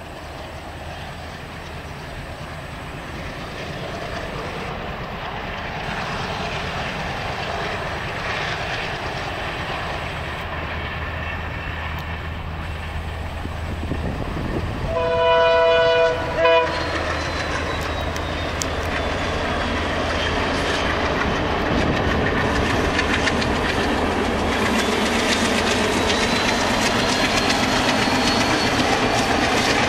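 Indian Railways diesel locomotive hauling a passenger train, its engine and running gear growing steadily louder as it approaches, with wheels clattering over the rail joints. About halfway through it sounds its horn, a long blast followed by a short one. After that the train is closer and louder, with a faint high whine over the rumble and clatter.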